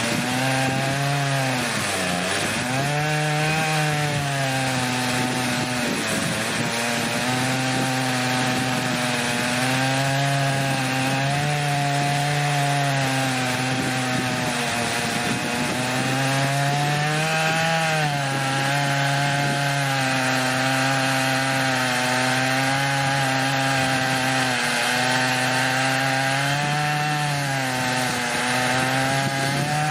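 Stihl MS880 two-stroke chainsaw with a 59-inch bar running steadily under load in an Alaskan chainsaw mill, ripping slabs lengthwise from a red oak log. The engine pitch sags and recovers about two seconds in and again a little past halfway.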